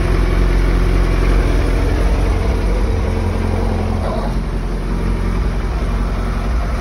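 Suzuki Hayabusa GSX1300R's inline-four engine idling steadily, just started after 5.5 years laid up and running on 5.5-year-old petrol.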